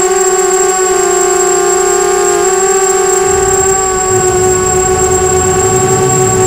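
Small FPV racing quadcopter's brushless motors and propellers whining at a near-steady pitch in cruising flight, heard through the onboard camera's microphone. From about three seconds in, a low rumble of wind on the microphone joins underneath.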